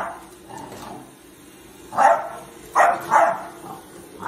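Puppy barking: one bark right at the start, then three more in quick succession about two seconds in.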